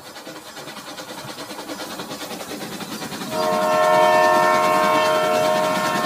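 Battery-powered toy train running along plastic track with a rapid rhythmic clatter that grows louder as it approaches. About three seconds in, its electronic whistle sounds, a chord of several steady tones held to the end.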